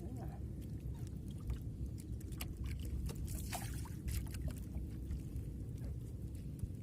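Water slapping and lapping against a small boat's hull, with scattered small splashes and clicks over a steady low rumble of wind on the microphone.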